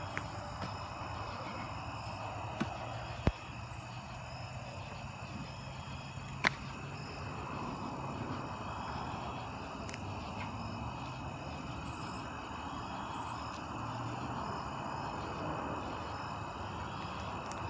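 Steady evening chorus of crickets and other insects, with a low hum underneath and two sharp clicks, about three and six and a half seconds in.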